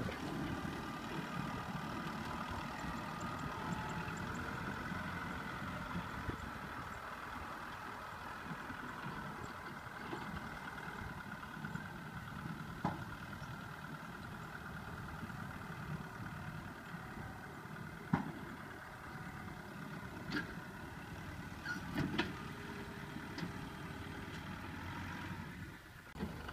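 Kubota farm tractor's diesel engine running steadily as it drives off towing a trailer, growing slowly fainter, with a few sharp clicks or knocks in the second half.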